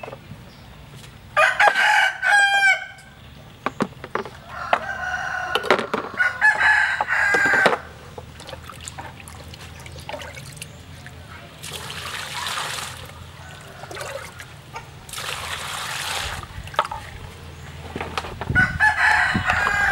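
A rooster crows loudly near the start, followed by more crowing and clucking a few seconds later. Later, water is poured twice from a plastic dipper, each pour about a second and a half long.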